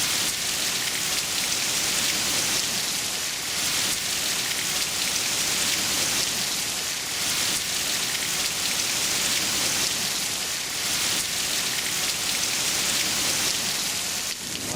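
Heavy thunderstorm rain pouring down: a steady, dense hiss.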